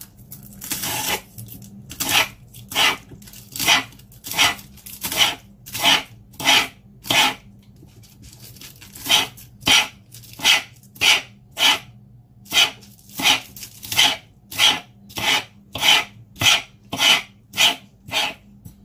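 A metal fork's tines raked repeatedly along spring onion stalks on a cutting board, scraping the green tops into fine shreds: about one scraping stroke every two-thirds of a second, with a short pause near the middle.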